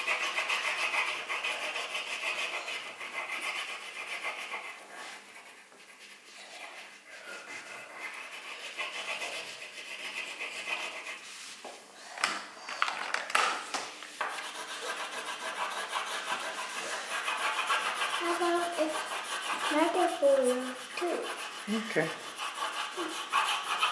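Crayola wax crayon scribbling on paper over a wooden tabletop: a scratchy, steady rubbing that fades away in the middle. About halfway through there is a short clatter of crayons knocking together as one is picked from a plastic tub, and then the scribbling starts again.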